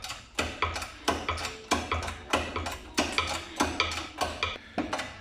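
Metallic clicks and clanks about three times a second from a shop press being worked to press a new front wheel hub bearing into the steering knuckle, with a steady low hum underneath.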